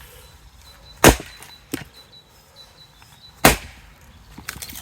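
Two axe blows into stringy firewood, about two and a half seconds apart, with a smaller knock between them. The stringy wood is not splitting cleanly.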